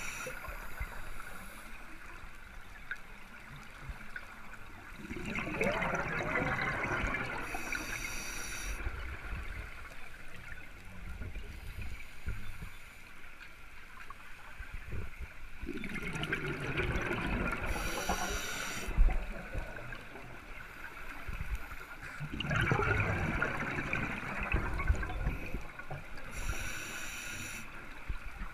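Scuba diver breathing underwater through a regulator, close to the camera: three breaths, each a gurgling rush of exhaled bubbles followed by the hiss of the demand valve on the next inhale.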